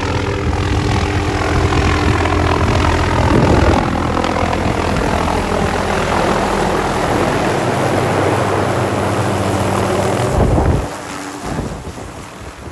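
Tour helicopter running close by, its engine and rotor a loud steady whine and thrum, with rotor downwash blowing hard on the microphone. The sound drops off suddenly near the end.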